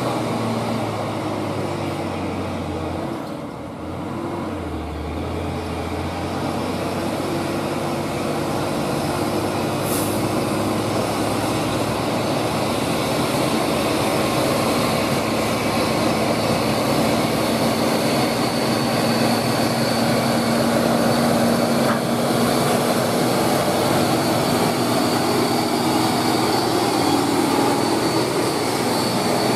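Hino FM350TH tractor unit's diesel engine running steadily under load while hauling a semitrailer with an excavator crawler track, growing louder as the truck approaches and passes close by, with tyre and road noise. There is a short hiss about ten seconds in.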